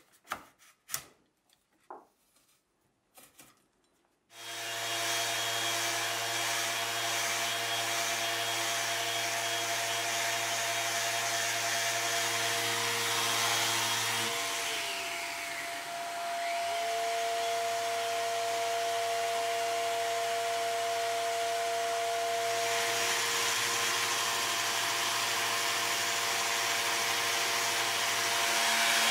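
A few faint scrapes of a utility knife cutting frayed binding off a willow cricket bat. About four seconds in, an electric random orbital sander starts and runs steadily against the bat's blade. About halfway through, its pitch drops for a couple of seconds, then comes back up.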